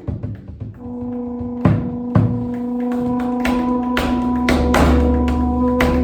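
A trombone holds one steady note under scattered percussion strikes, which turn into quick, repeated tapping from about four seconds in.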